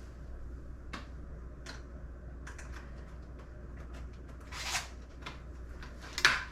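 Scattered light clicks and ticks of hand tools and small metal parts being handled while brake hardware is tightened, with two short louder rasps near the end.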